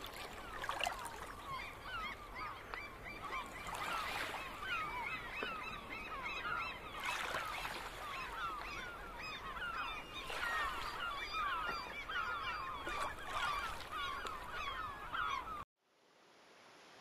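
A large flock of geese honking, many calls overlapping without a break, then cutting off suddenly near the end.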